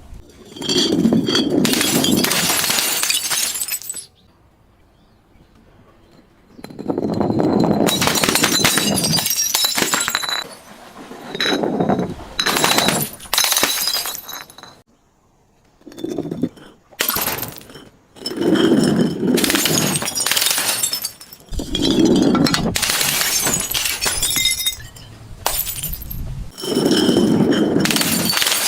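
Glass bottles being broken and crushed in about seven separate bouts of loud crunching and shattering, with high clinks and rings from the shards.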